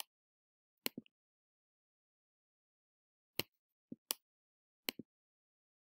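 Computer mouse clicking: about eight short, sharp clicks in otherwise dead silence, several of them in quick pairs like double-clicks, as the presentation window is moved and resized.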